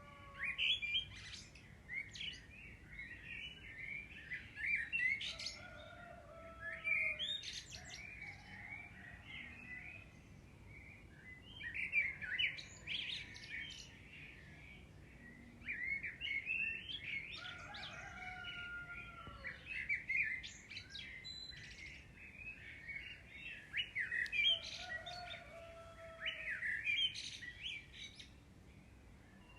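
Birds chirping and twittering in repeated bursts every few seconds, with a few lower whistled notes among them.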